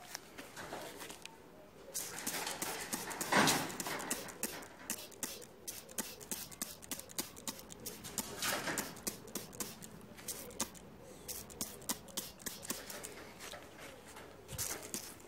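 Cleaner being sprayed onto a barbecue kettle lid: a run of short, sharp spraying clicks and hisses, with a couple of longer sprays about three and nine seconds in.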